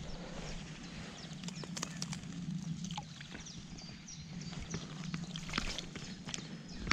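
Small splashes and drips of water as a bream is let go by hand at the water's edge, over birds chirping with many short, high, falling calls and a steady low hum.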